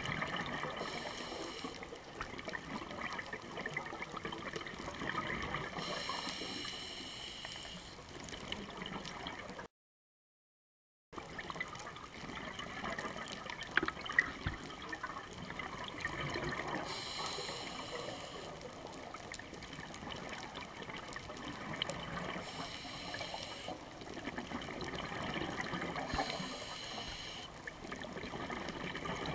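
Underwater sound of a scuba diver's regulator, heard through the camera's waterproof housing: exhaled bubbles gurgle out in bursts every four to five seconds over a steady watery hiss. The sound cuts out for about a second and a half, about ten seconds in.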